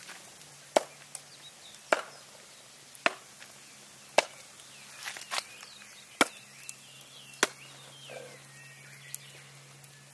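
Firewood being split for a campfire: a series of sharp wooden chopping strikes, roughly one a second, each hit meant to be harder than the last.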